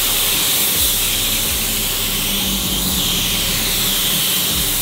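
Gravity-feed compressed-air spray gun hissing steadily as it sprays the green colour coat onto a car bonnet over grey base coat.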